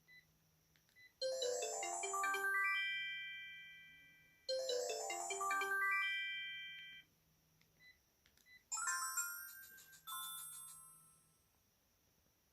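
Sharp GX1 mobile phone playing ringtones through its speaker. A short melodic phrase of quick notes plays twice. After a few faint beeps, a different, higher chime sounds in two short phrases.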